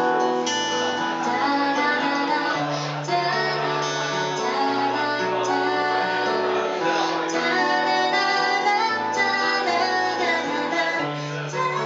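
A woman singing while strumming her own acoustic guitar.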